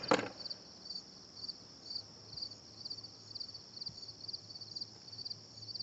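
Crickets chirping, about two chirps a second, each a quick trill, over a steady high insect buzz.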